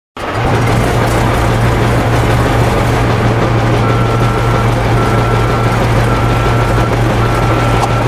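Truck engine sound effect running steadily as the toy dump truck drives in. From about four seconds in, four evenly spaced long beeps on one pitch.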